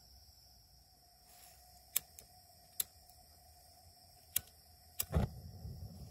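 A handheld lighter clicks about five times at the burner of an outdoor propane cooker. Just after the last click the gas catches with a low whoomp, and the burner keeps burning with an uneven low rumble.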